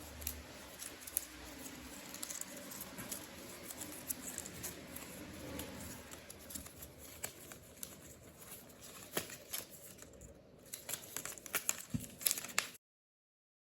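Packaging being handled during an unboxing: paper or plastic crinkling and rustling, with many small clicks and taps. It cuts off abruptly near the end.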